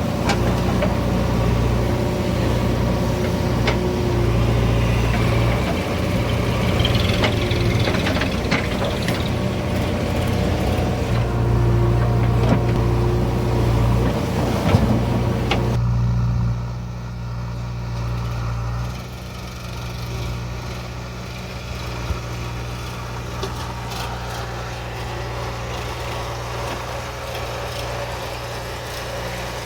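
Heavy diesel machine engine running steadily, with scattered knocks and rattles over it for the first half. About 16 seconds in, the rattling and hiss drop away, and the engine runs on more quietly.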